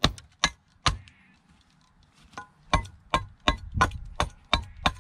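Manaresi billhook chopping along the edges of a small wooden block to chamfer them: three sharp strikes, a pause of over a second, then a quick run of about eight strikes at roughly three a second, some with a faint metallic ring.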